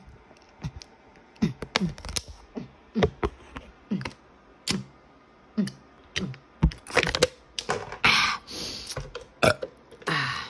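Gulping a drink from a plastic bottle held right at the microphone: a run of sharp, clicky swallows and crackles of the plastic, about two a second, with two longer hisses near the end.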